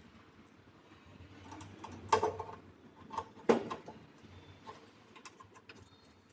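Scattered small clicks and knocks of a red PV cable being handled and pushed into a solar PV combiner box's input port, the loudest knock about three and a half seconds in.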